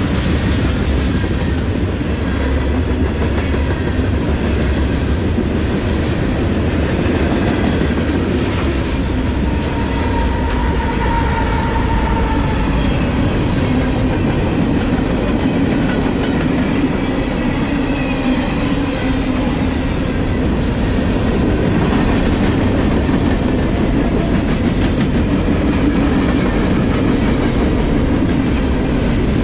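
A CSX manifest freight train's cars rolling past at close range: a loud, steady rumble of steel wheels on rail with a regular clickety-clack. A brief high-pitched ring is heard about ten seconds in.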